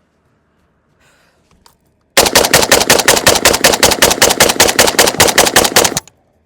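A rapid string of rifle fire, about two dozen shots at roughly seven a second, from a Zastava M70 AK-pattern rifle in 7.62×39mm. The fire lasts nearly four seconds and stops abruptly, after a few faint clicks of handling.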